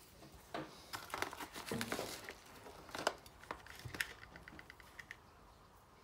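A metal teaspoon scraping and clicking as dry spice rub is spooned onto raw chicken thighs: scattered light scrapes and clicks, then a quick run of small ticks lasting about a second.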